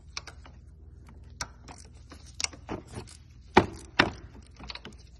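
Scattered metallic clicks and knocks of a hand tool working the E8 inverted Torx bolts of a Mazdaspeed high-pressure fuel pump to break them loose, with two louder knocks about half a second apart past the middle.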